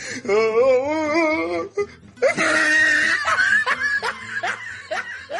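Comic laughter sound effect added in editing: a voice wobbling up and down in pitch at first, then a loud shrill laugh about two seconds in that breaks into a run of short falling laughs, about four a second.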